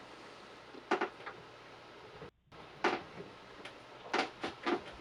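Scattered clicks and light knocks of small metal lathe parts and tools being handled during assembly: one about a second in, one near the middle, and three in quick succession near the end.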